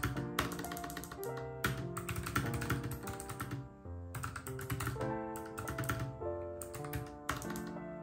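Fingers typing quickly on a low-profile computer keyboard, a rapid irregular run of key clicks, heard over background music with held melodic notes.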